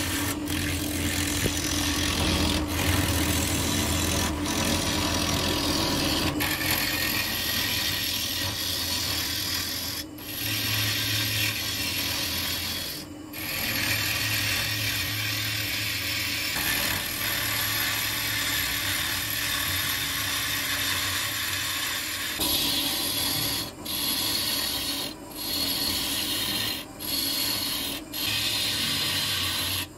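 A woodturning lathe spins a glued-up blank of apple-wood planks while a gouge roughs it down, making a continuous rough cutting and scraping noise. The cut breaks off briefly a few times, more often in the last few seconds as the tool lifts off the wood.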